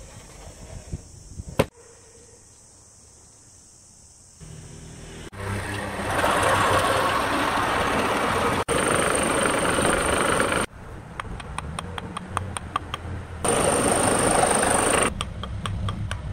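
Electric band saw: the motor starts up about four seconds in, then the blade cuts through a thick wooden block in several loud stretches, with a rapid, even ticking between cuts.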